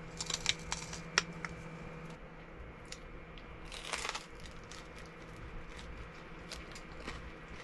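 Biting and chewing crusty homemade sourdough bread. The crust crunches in a cluster of sharp crackles in the first second and a half, and again about four seconds in.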